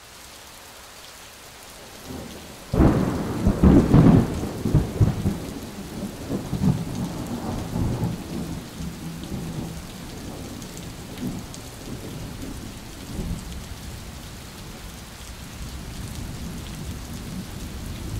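Thunderstorm: steady rain with a sudden loud crack of thunder about three seconds in, rumbling on and slowly fading over the following seconds while the rain continues.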